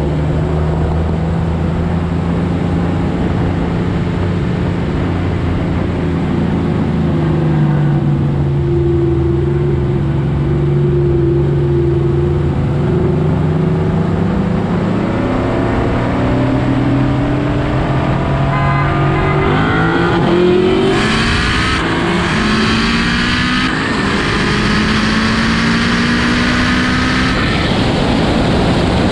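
Car engine running at a steady cruise with road and wind rush, then from about two-thirds in the revs climb hard under full throttle, with a brief break for a gear change and a drop near the end as the throttle comes off.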